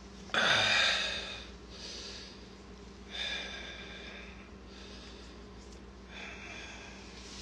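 A man's breath, three short noisy exhales or snorts a few seconds apart. The first is the loudest and longest.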